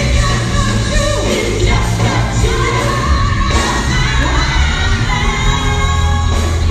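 Live gospel group singing with band accompaniment, a strong bass line under the voices.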